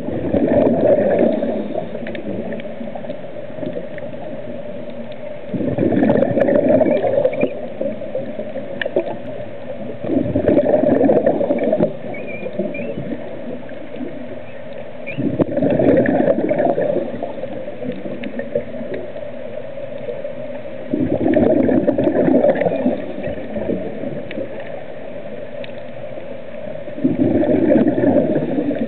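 A scuba diver's exhaled breath bubbling out of the regulator, heard underwater: six bursts, each lasting one to two seconds and coming roughly every five to six seconds, with a steady quieter water noise between breaths.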